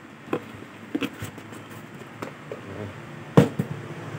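Handling noise from a fishing reel's box and paper manual: a scattered series of light knocks and clicks, the loudest about three and a half seconds in, over a steady low hum.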